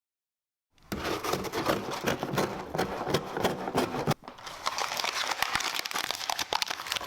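Packaging being handled and crinkled: dense crackling and crinkling in two stretches, with a short break about four seconds in.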